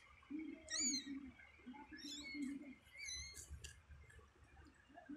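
Newborn kittens squeaking: about three bursts of thin, high-pitched, wavering cries, with lower cat sounds in between.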